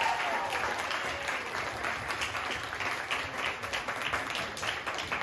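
Small audience applauding, a dense patter of many hands clapping with individual claps standing out.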